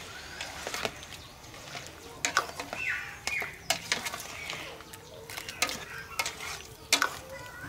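A ladle stirring soup in a large aluminium pot, knocking and scraping against the pot's side in irregular clinks. The loudest clinks come about two seconds in and near the end.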